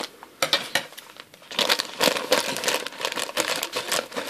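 Thin clear plastic bag crinkling and rustling as it is handled, with irregular rustles that grow busier after the first second and a half, then cut open with scissors near the end.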